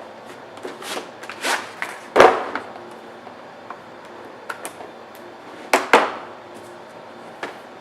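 A plastic case of impact sockets being handled and opened: a string of clicks and knocks from the case and the loose steel sockets inside, loudest about two seconds in and again twice around six seconds, with some rustling between.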